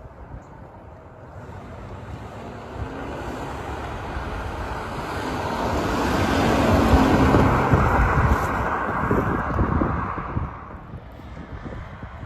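A car driving past, its engine and tyre noise swelling over several seconds to a peak about seven seconds in, then fading away, with wind on the microphone.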